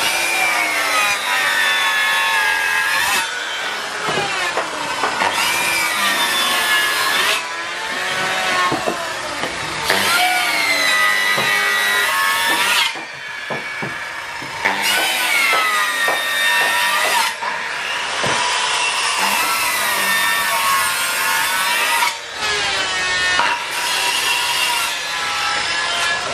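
Electric circular saw cutting a solid-wood door panel in a series of cuts two to three seconds long. The blade's whine dips in pitch as it bites into the wood and rises again as it frees, with quieter free-running spells between passes.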